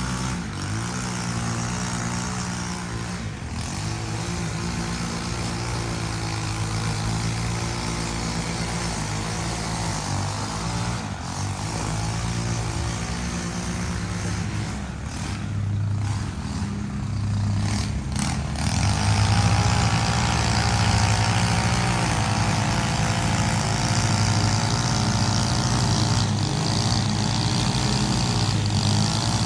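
Small engine of lawn-care equipment running steadily, growing louder with a higher whine added about eighteen seconds in.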